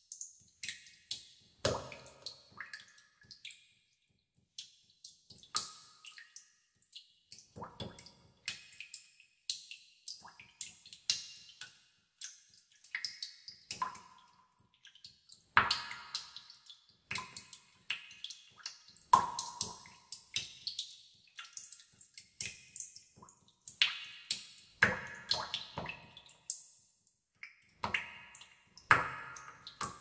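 Water droplets dripping into a pool in a cave: sharp plinks with echoing tails, a few drops a second at irregular intervals, some with a ringing pitch.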